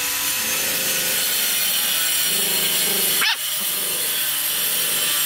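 Puppies play-fighting with growls, over a loud, steady hiss. A sharp click comes a little over three seconds in.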